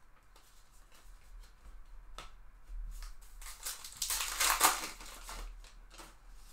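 A stack of baseball cards being handled: cards slide and flick against each other with light clicks. A louder rustling scrape comes about four seconds in, as the stack is held edge-on and squared.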